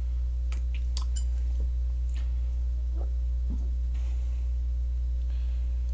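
Steady low electrical hum, with a few faint light clicks scattered through it.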